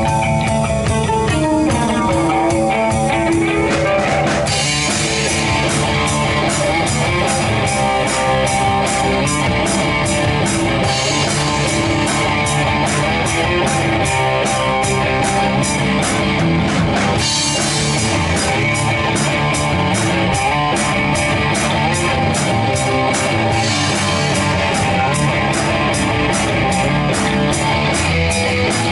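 Rock band jamming live: guitar playing alone at first, then the drum kit comes in about four seconds in and keeps a steady beat under the guitar.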